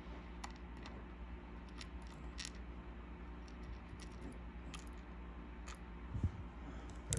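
Faint scattered clicks of steel tweezers and small brass lock pins being set into a plastic pin tray, over a low steady hum, with a soft knock about six seconds in.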